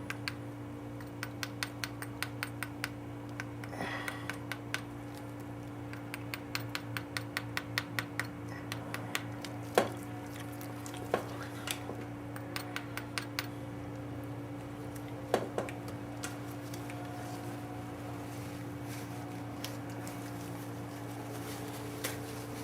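A valve being lapped into its seat in a Ford 302 cylinder head with fine lapping compound: a quick run of small gritty clicks, a few each second, as the valve is spun back and forth against the seat. A few louder knocks follow near the middle. A steady low hum sits underneath.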